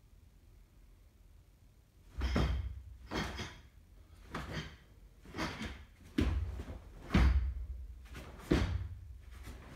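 Quiet at first, then from about two seconds in a run of sharp swishes and thuds, roughly one a second: the karate gi snapping and bare feet striking and stepping on the carpeted floor with each block and punch of the Heian Nidan kata.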